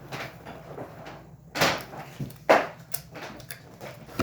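Close-up eating sounds: crunchy food, likely a nacho chip, being bitten and chewed near the microphone, with two louder crunches in the middle among smaller clicks.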